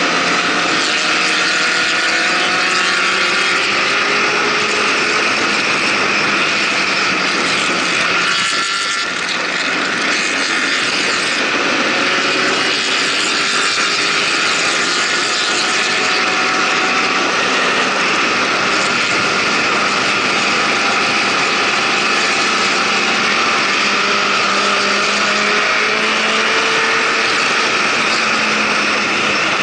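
Motorcycle engine running at highway speed under heavy wind rush, its note climbing slowly several times as the rider accelerates, with a brief drop in level about eight or nine seconds in.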